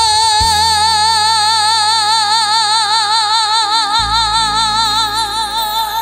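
A woman's voice holding one long high note with a steady, wide vibrato over a trot backing band: the closing note of the song. The band's bass shifts to a new note about two-thirds of the way through.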